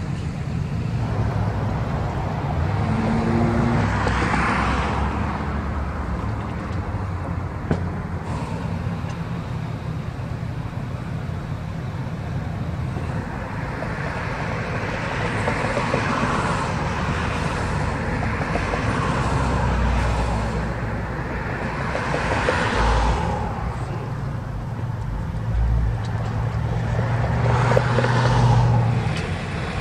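Road traffic passing close by: pickup trucks towing horse trailers and cars go past one after another, each pass swelling in engine and tyre noise and fading away, over a steady low engine drone. The loudest pass, with a deep steady engine hum, comes near the end.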